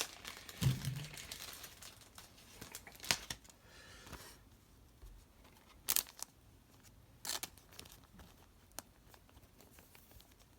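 Thin plastic card sleeve crinkling and rustling as a trading card is slid into it. A few sharp clicks and taps follow, the later ones spaced a second or more apart.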